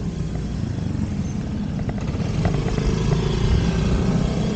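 Wind rumbling on the microphone of a bike-mounted action camera while cycling, with tyre noise on asphalt and small rattles and clicks from the bicycle.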